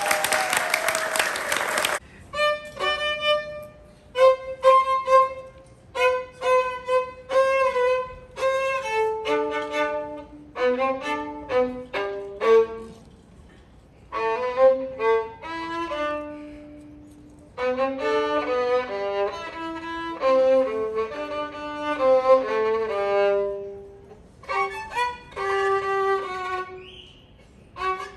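Applause for about the first two seconds, then an unaccompanied violin playing a slow melody in separate phrases with short pauses between them.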